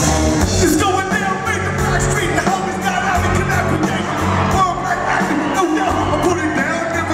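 Live rock band playing loud through the PA, with a singing voice and electric guitar over bass and drums.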